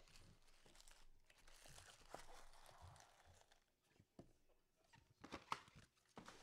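Faint rustling and crinkling of trading-card packaging being handled, with a few small taps and clicks.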